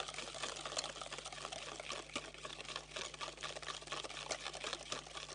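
A hand wire whisk beats eggs and sugar in a stainless steel bowl, its wires clicking rapidly and irregularly against the metal as the mixture is whipped toward a foam for a sponge cake.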